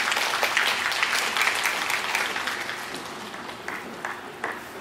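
Crowd applauding at the end of a sumo bout, fullest in the first two seconds and dying away from about three seconds in.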